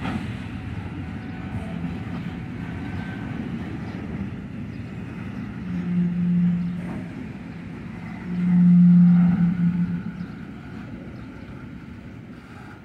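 Freight train of flatcars loaded with steel coils rolling slowly past, wheels rumbling steadily on the rails. Two loud, low, steady droning tones of about a second each come midway, the second the louder.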